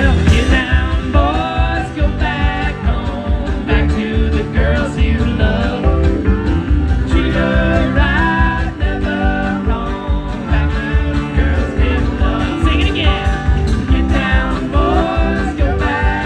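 A string band playing a country tune live, in a stretch without sung words: a bending lead melody over steady low notes and rhythm.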